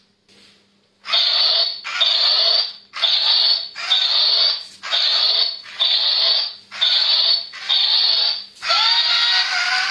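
Remote-control toy robot running its demonstration mode. About a second in it starts a regular run of short pulsing bursts, one just under every second. Near the end it gives rising, swooping electronic tones.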